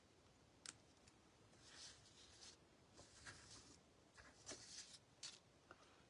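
Faint rustling of cardstock pieces being handled and slid about, with a couple of light clicks.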